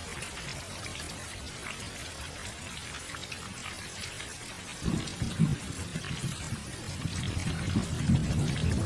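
Steady rain-like water noise, an even hiss with faint scattered drips. A low rumble comes in about halfway through and grows louder toward the end.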